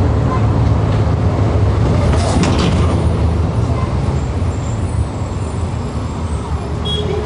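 City bus riding along, heard from on board: a steady low engine and road rumble, with a short hiss about two seconds in.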